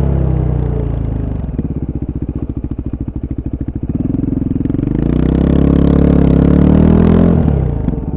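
Voge 300 Rally's single-cylinder engine through its stock exhaust, heard on board while riding. It runs down to low revs with each firing pulse distinct, picks up again about halfway through and holds for a few seconds, then drops back when the throttle closes near the end.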